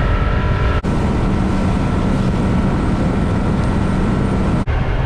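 Fishing boat's outboard motor running at speed with heavy wind and water noise as the boat runs across open water; the sound breaks off briefly a few times at edit cuts.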